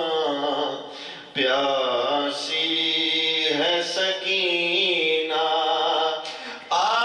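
A man chanting an Urdu noha, a mourning lament, unaccompanied: long held, wavering notes of a single voice, with brief breaks for breath about a second in and again near the end.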